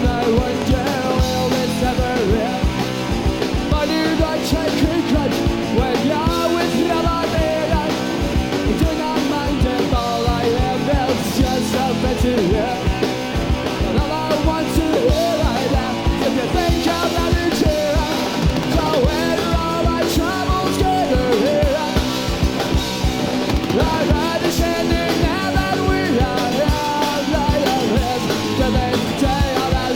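Live punk rock band playing a fast song, with a steady drum beat and a singing voice.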